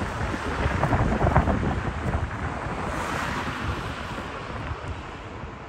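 Wind buffeting the microphone: a gusty, rumbling rush of noise that eases off over the few seconds.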